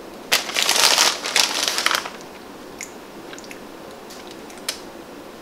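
Plastic bag of shredded mozzarella crinkling as it is handled and the cheese is shaken out, a dense crackle lasting about two seconds, followed by a few faint ticks.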